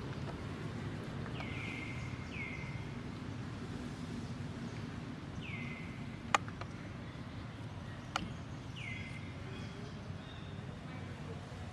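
Four short chirps, each sliding down in pitch, over a steady low background rumble, with two sharp clicks about two seconds apart.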